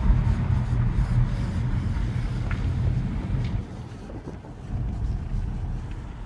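BMW E90 3 Series on the move: a low rumbling drone of road and drivetrain noise that eases a little past halfway, recorded for a rubbing noise coming from the rear of the car.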